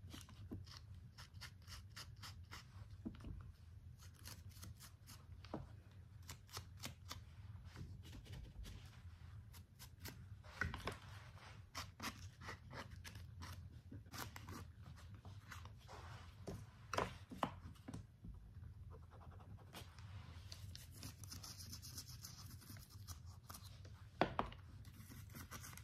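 Faint, irregular scratching, rubbing and tapping of hand-work applying an aging finish to a papier-mâché hat, over a low steady hum.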